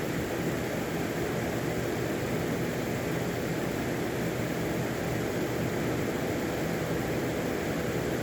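Steady background hiss with a faint low hum underneath, unchanging throughout, with no distinct events.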